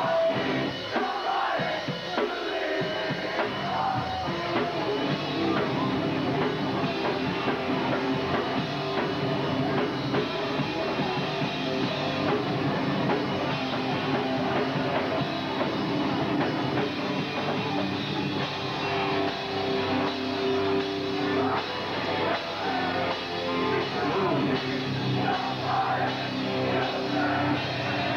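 Hardcore punk band playing live: distorted guitar and bass over a fast drum kit, steady and loud throughout.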